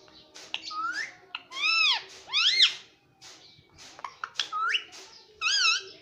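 Indian ringneck parakeet whistling: several clear whistles that rise, or rise and fall, in the first half, then quick wavering, trilling whistles near the end. Light sharp clicks of its beak tapping on a phone screen run between them.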